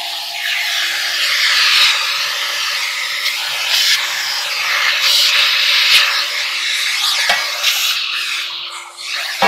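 Vacuum cleaner running steadily, its hose nozzle sucking at a clothes dryer's lint-trap housing, the rushing hiss shifting as the nozzle is moved and rubbed around the opening. A couple of short knocks, the sharper one near the end.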